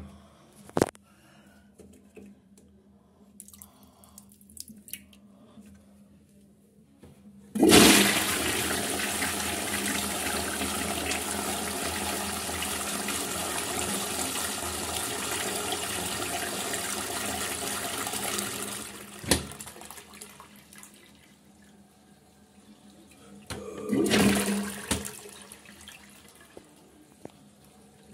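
Toilet flushing: a loud rush of water into the bowl starts suddenly about a quarter of the way in, runs steadily for about eleven seconds and then dies away. A couple of clacks come at the start as the seat is lifted, a knock follows just after the flush, and a short burst of noise comes near the end.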